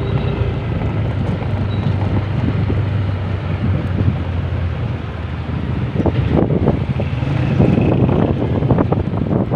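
Motorcycle riding along with its engine running as a steady low hum, and wind buffeting the microphone. The wind gusts harder from about six seconds in.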